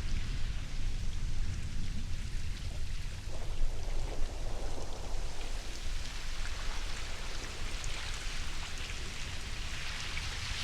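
Ocean surf: waves washing ashore in a continuous rush over a deep rumble, with one wave swelling louder near the end.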